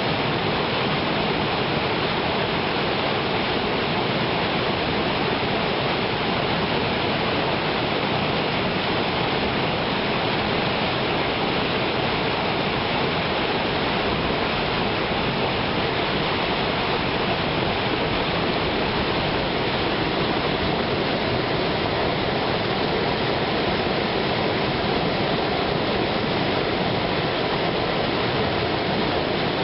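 River water rushing steadily over rapids below a waterfall, an even unbroken noise.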